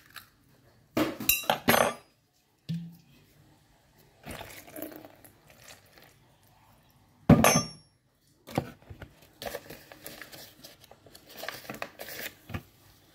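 Egg-cracking and kitchen clatter: a knife tapping and cracking an egg shell over a plastic bowl, then scattered clinks and knocks of the bowl and utensils, with one loud clink about seven seconds in. Near the end come quick rustles and small clatters as a paper bag of wheat flour is handled.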